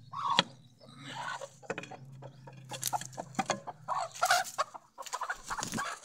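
Hens clucking in a run of short calls while being shooed out of their coop, the loudest call about half a second in.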